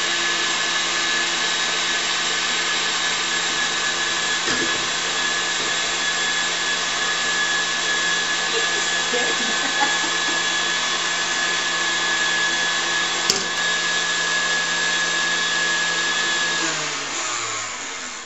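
Electric stand mixer running at high speed, whipping cream with cocoa powder in its steel bowl: a steady motor whine. About a second and a half before the end it is switched off and the whine winds down in pitch.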